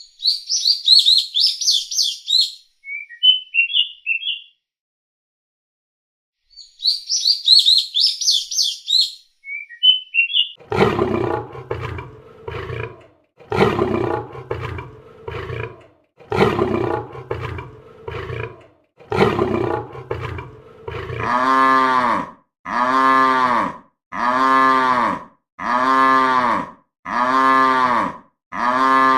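Animal sound clips in turn. First, bird chirps in two spells with a short silence between. Then a run of loud, deep roars about every two and a half seconds, and near the end a short, pitched animal call repeated evenly about every second and a half.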